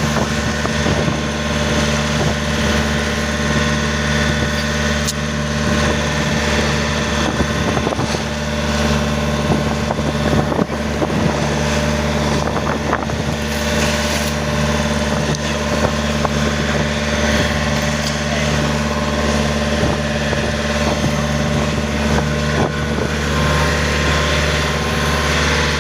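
Tour boat's engine running steadily: an even low hum under a constant hiss.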